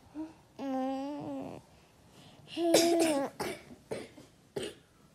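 Wordless voice sounds: a short one at the start, then two drawn-out vocal sounds, one about half a second in and a louder, gliding one around the middle, with a few small clicks between.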